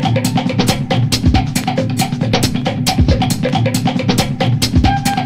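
Background music with a steady drum-kit beat of fast, even hits and a few held instrument notes.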